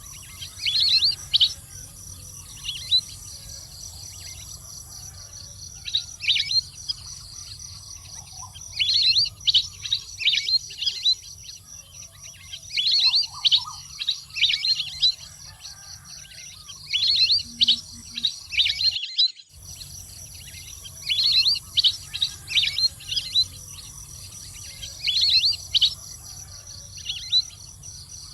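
Waterfowl calling: clusters of high, quick chirping calls every few seconds, over a steady buzz of insects. The sound cuts out briefly about two-thirds of the way through.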